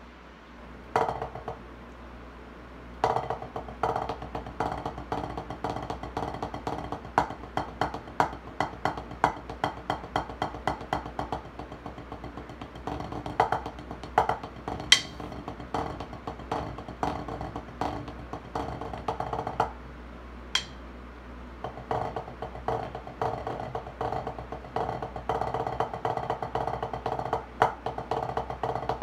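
Wooden drumsticks striking a drum practice pad in fast, even strokes that give a dry tapping. The playing starts about a second in, breaks briefly, then runs steadily, with a pause of about two seconds some two-thirds of the way through and a couple of sharper accents.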